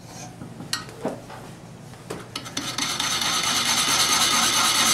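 A pointed turning tool scraping a marking line into a wood blank spinning on a lathe. A few light clicks come first, then about halfway in a loud, steady rasping cut with a ringing tone in it.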